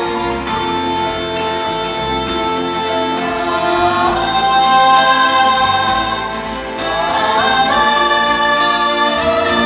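A choir singing sustained notes over orchestral accompaniment in a stage musical. Twice the voices slide up to a higher note, about four and seven seconds in.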